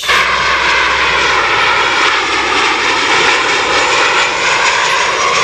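Twin turbofan engines of a US Navy Boeing 737-based jet flying low on approach with its landing gear down: a loud, steady jet rush that starts abruptly.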